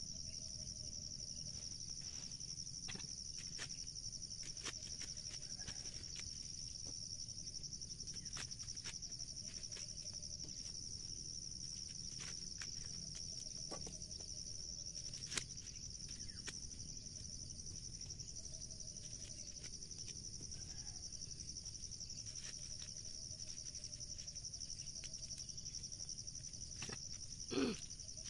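A steady high-pitched insect chorus drones, with light rustles and clicks of dry corn husks being stripped from the ears. A brief loud vocal sound comes near the end.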